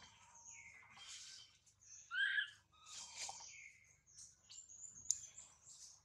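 Newborn macaque's thin, bird-like chirping cries, the calls of an infant wanting its mother. The loudest cry comes about two seconds in, with fainter chirps around it and a sharp click near the end.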